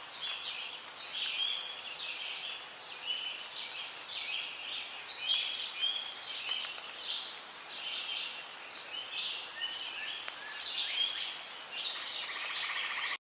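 Rainforest ambience: a dense chorus of many short bird chirps and calls over a steady hiss, with a fast trill joining near the end. It cuts off abruptly just before the end.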